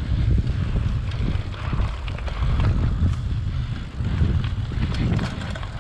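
Mountain bike rolling along a dirt trail: a steady rumble of wind buffeting the microphone and tyre noise, with scattered clicks and knocks.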